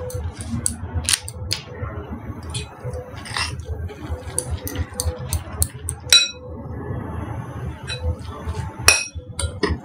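Soya and cabbage mixture being kneaded by hand in a glass bowl, giving soft handling noise and many small clicks. A steel spoon clinks against the glass now and then, with two louder ringing clinks about six and about nine seconds in.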